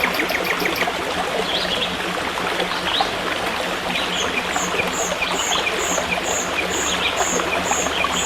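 Stream water flowing steadily, with forest birdsong over it: a short rapid trill near the start, then a bird repeating one high note about twice a second through the second half.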